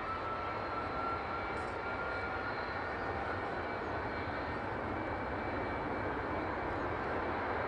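Jet airliner engine running steadily on the ground, a rushing noise with a faint whine that rises slowly in pitch.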